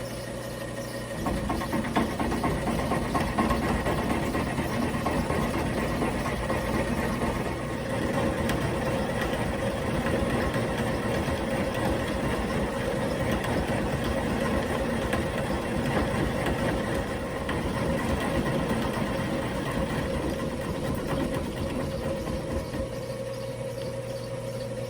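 Rong Fu round column milling machine running, with its steady motor hum and whine; about a second in, the end mill starts cutting into the workpiece and keeps up a rough cutting noise through a long pass, easing off near the end.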